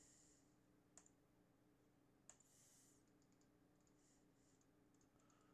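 Near silence, with two faint computer mouse clicks about a second in and a little after two seconds, and a few fainter ticks later on.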